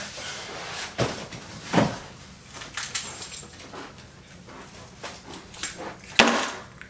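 A person moving about a room: footsteps, rustling and scattered knocks as a backpack is handled. A louder, sharp thump comes about six seconds in.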